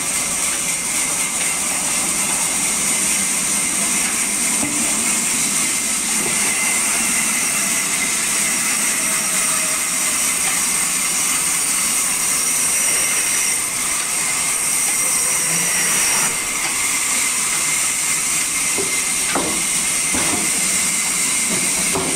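Vertical band sawmill running steadily with a loud high hiss as logs are fed through the blade on the carriage. A few short knocks come in the last several seconds.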